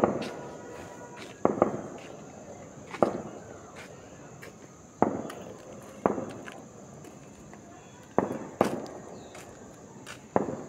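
A series of about nine sharp bangs, each trailing off with an echo over about a second, coming irregularly one to two seconds apart. A faint steady high-pitched tone sits underneath.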